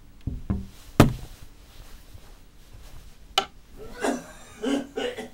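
A few knocks and thuds: two low thumps, then a sharp knock about a second in, the loudest, and another sharp knock a couple of seconds later. Near the end come several short, strained vocal sounds.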